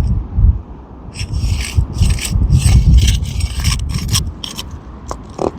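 A metal pry bar scraping and rasping in repeated short strokes as it is worked under asphalt shingles, breaking the sealant strips, along with low rumbling and knocks.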